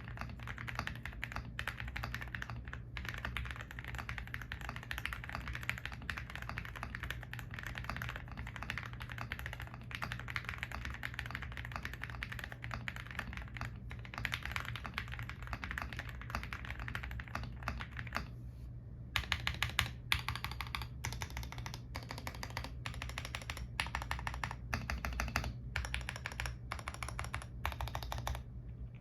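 GMK87 mechanical keyboard with Gateron Milky Yellow Pro linear switches, PBT XDA keycaps and foam and tape mods, being typed on quickly and continuously. About two-thirds of the way through, the typing changes to separate single key presses, about two a second, on the stabilized keys.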